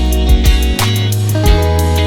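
Background music: a pop song with a steady drum beat, plucked guitar and a deep bass line.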